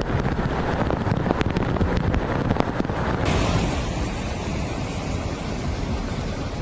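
Wind buffeting the microphone over rushing, splashing floodwater, with scattered sharp knocks. The sound changes abruptly about three seconds in.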